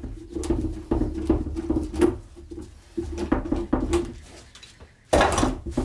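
Metal bar clamps being unscrewed from a glued-up cedar panel, the clamp screws and jaws giving a string of rattles and clicks, with a louder metal clank about five seconds in.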